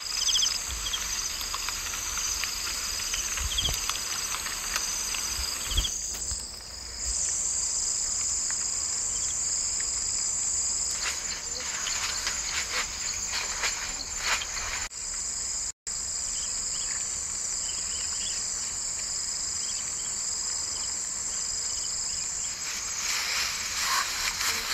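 Insects chirring in a steady, continuous high-pitched drone. Rustling of someone moving through brush and grass comes through it in a few stretches around the middle and again near the end. The sound cuts out for an instant about two-thirds of the way through.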